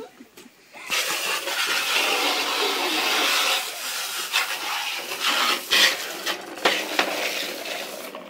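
Water jetting from a garden hose spray nozzle into a plastic toy dump truck and splashing onto paving: a steady hiss of spray that starts about a second in. A few sharp knocks come in the last couple of seconds.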